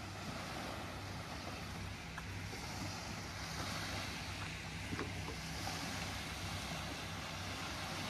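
Wind on the microphone and gentle Lake Michigan surf washing on the beach below, a steady hiss that swells a little about halfway through, over a steady low hum.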